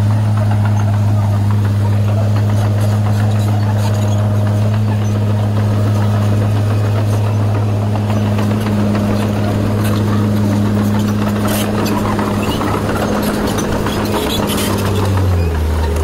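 Komatsu D20 bulldozer's diesel engine running at a steady working pitch as it pushes dirt, its pitch dropping near the end.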